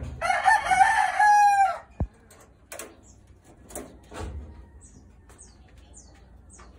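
A rooster crows once, a loud call of about a second and a half that ends in a falling note. A sharp knock follows about two seconds in, and later a few short high chirps.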